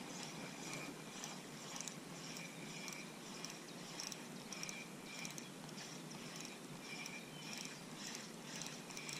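Spinning reel being cranked to retrieve a lure, giving a faint rhythmic ticking of about one and a half ticks a second.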